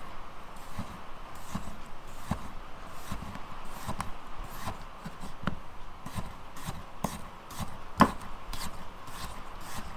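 Chef's knife slicing a potato on a wooden chopping board, the blade knocking on the board with each cut at a steady one to two cuts a second. One cut about eight seconds in lands louder than the rest.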